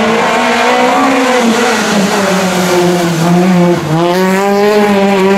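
Peugeot 208 R2 rally car's 1.6-litre four-cylinder engine running hard through a corner, its pitch dipping briefly a little after the middle and then picking up again. Tyres hiss on wet tarmac underneath.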